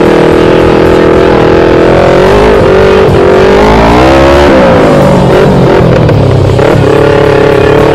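Motorcycle engine heard from an onboard camera while riding, running loud and steady, its pitch rising and then falling around the middle as the throttle is opened and eased off.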